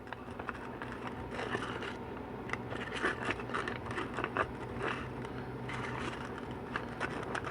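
Light scraping and small clicks of metal transmission parts and a seal-installer tool being handled on a workbench, over a faint steady low hum.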